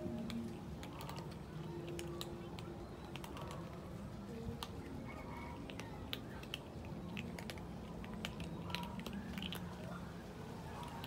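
Several cats eating dry kibble together: a dense, irregular patter of sharp crunches and clicks as the pellets are bitten and chewed.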